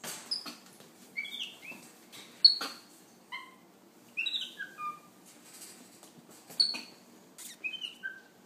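Capuchin monkey giving a string of short, high-pitched squeaks and chirps, several falling in pitch, mixed with a few sharp clicks, the loudest about two and a half seconds in.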